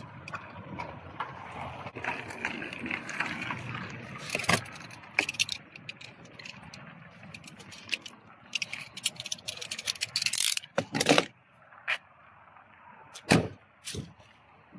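Handling noises around a car's open engine bay: rustling with scattered clicks and knocks, a quick run of them a little past the middle, and a heavier knock near the end.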